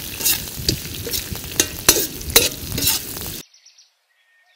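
Chillies, mint, tamarind and dal frying in an iron kadai, with a metal ladle scraping and stirring through them over a steady sizzle. The sound cuts off suddenly about three and a half seconds in, leaving only faint high chirps.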